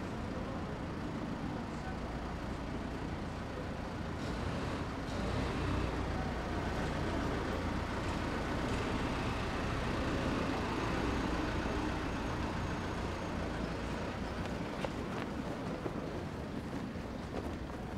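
Street noise led by a small truck's engine running at low speed, swelling a little in the middle of the stretch as it passes, over a steady low rumble.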